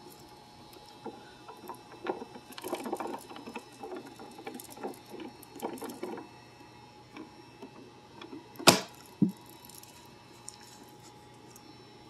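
Dust and debris being pushed and shaken out of a clear vacuum cleaner canister onto carpet, with the vacuum off: irregular soft crackling, rustling and clicking. A single sharp knock comes near the end, followed by a smaller one.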